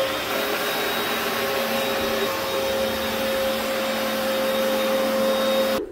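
Upright carpet cleaner running steadily as it is pushed over carpet: a steady motor and suction hum with a held whine. It cuts off suddenly near the end.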